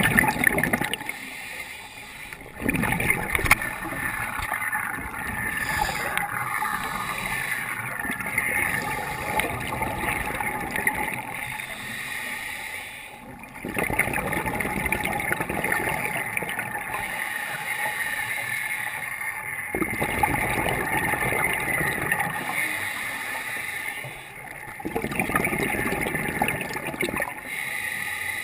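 Scuba diver breathing through a regulator underwater, heard through a camera's waterproof housing: exhaled air bubbling out in long rushes, each starting abruptly, about four of them.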